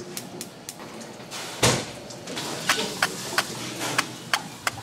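Chef's knife chopping chives on a cutting board: sharp, even knocks of the blade on the board, about three a second, in the second half. A single loud thump comes a little over a second and a half in, just before the chopping starts.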